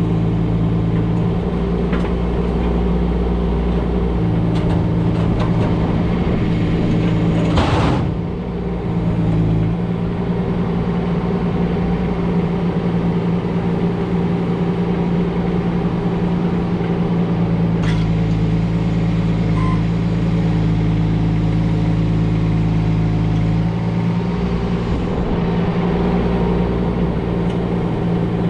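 Kubota U17 mini excavator's diesel engine running steadily while its hydraulics swing and lift concrete slab chunks, the engine note shifting with the load. About eight seconds in comes a loud, brief crash, with a single sharp knock later on.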